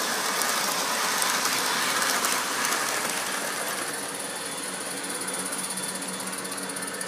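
Model train wheels rolling and clattering along the rails of an outdoor model railroad layout, louder for the first three seconds, then easing, with a faint steady high whine from about four seconds in.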